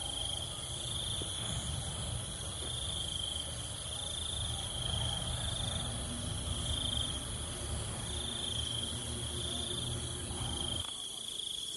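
Insects chirring without a break in a high band that swells and fades every second or so, over a low rumbling noise that cuts off suddenly near the end.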